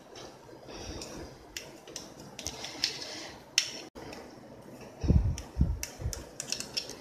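Kitchen knife cutting through steamed dhokla and scraping against the steel thali beneath: a string of light scrapes and clicks, with a few dull thumps about five seconds in.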